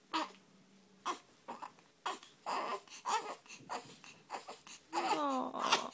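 A small child crying in short broken sobs while still hiccuping, then a longer wail that falls in pitch near the end.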